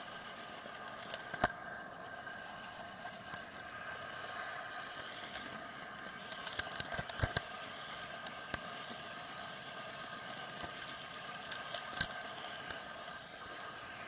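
Model train running on its track, heard from a camera riding on board: a steady small electric motor whine and wheel noise, with a few sharp clicks as the wheels pass rail joints and points, near the start, midway and near the end.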